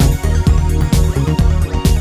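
Electronic music from a Waldorf Microwave II/XT synthesizer demo track: synth parts over a steady beat with heavy bass.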